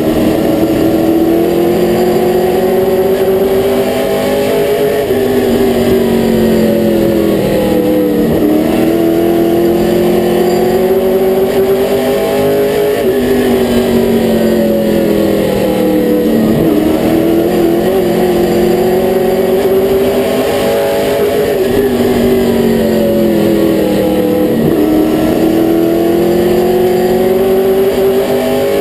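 Late model stock car's V8 racing engine at speed, heard from inside the cockpit, its pitch climbing steadily for several seconds and then falling back, over and over as the car runs the straights and lifts for the turns.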